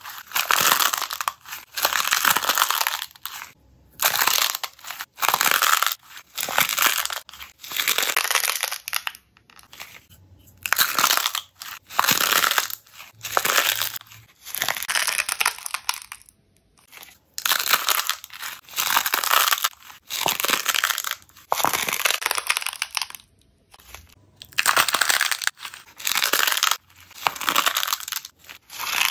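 Paper cups lined with jelly slime being squeezed and folded by hand, crackling and crunching in repeated bursts about once a second.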